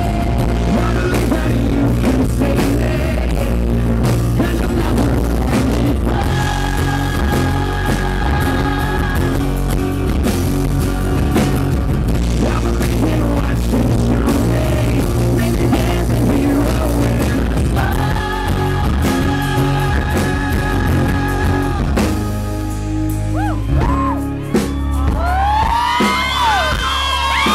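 Live acoustic rock performance: two acoustic guitars strumming while a male singer holds two long notes. Near the end the music eases off and fans scream and whoop with high, sliding cries.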